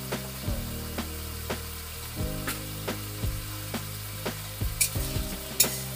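Marinated chicken sizzling in oil in a kadai while it is sautéed and stirred, the spatula knocking and scraping against the pan about twice a second.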